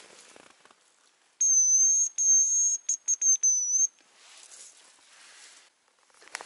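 Hazel grouse decoy whistle blown close by, imitating the hazel grouse's call to lure birds in: a thin, very high whistle in two long notes, then a string of short broken notes. Faint rustling in the grass before and after.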